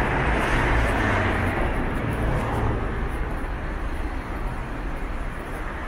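Street traffic: the rumble of a motor vehicle going by, loudest at first and easing off about halfway through, over steady city traffic noise.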